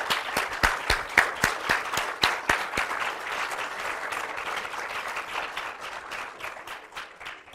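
A small audience applauding, with separate claps audible; the clapping thins and dies away near the end.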